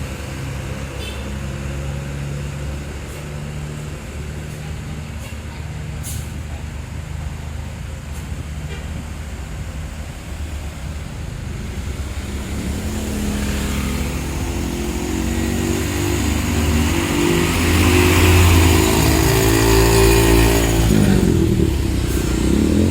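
Diesel tour bus engines running near idle, then growing louder from about halfway through as a bus pulls out and drives close past, with its engine and tyre noise loudest near the end.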